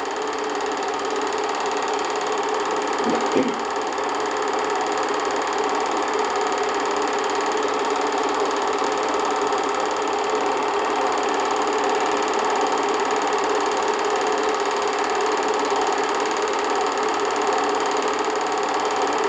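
An 8mm film projector running steadily, a constant mechanical whir.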